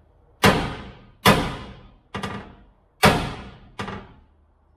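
Hammer blows on a steel truck chassis rail, about five strikes under a second apart, each ringing briefly; some are louder, some lighter. The rail has just been heated and is being panel-beaten back into shape.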